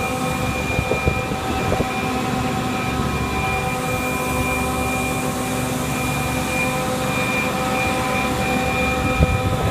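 MK5 drilling machine running steadily: a constant mechanical drone with several unchanging whining pitches held over it.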